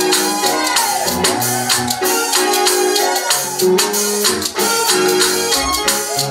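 Upbeat gospel band music: held keyboard chords and a moving bass line over a steady percussion beat.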